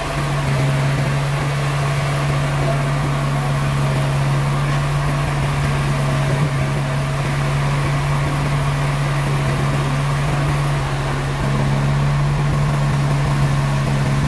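Heavy sawmill machinery running steadily: a low, constant hum under an even wash of mechanical noise. The hum shifts slightly, thickening about 11 seconds in.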